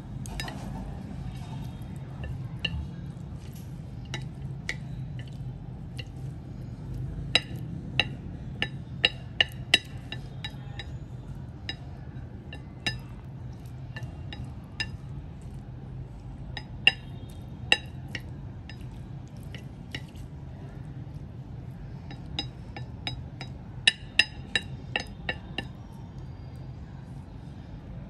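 Chopsticks clinking against a porcelain plate while tossing a salad: irregular sharp clinks, several in quick runs about a third of the way in and again near the end, over a steady low hum.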